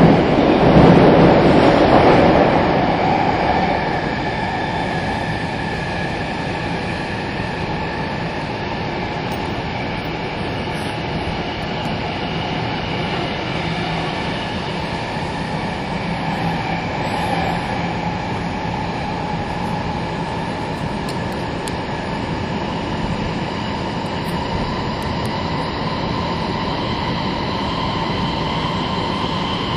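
Sakura-dori Line 6050-series subway train running at speed underground, heard from aboard: a steady rumble of wheels and running gear with a few steady high whining tones from the drive. It is loudest in the first few seconds, then settles to an even level.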